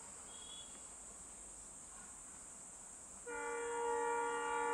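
Indian Railways locomotive horn sounding one long, steady blast that starts about three seconds in, after a stretch of quiet with only a faint high-pitched hiss.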